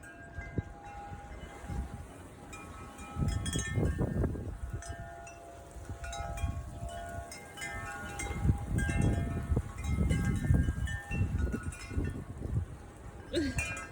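Wind chimes ringing irregularly in a strong gusting wind, several pitches struck again and again. Wind buffets the microphone in gusts about three to four seconds in and again from about eight seconds on.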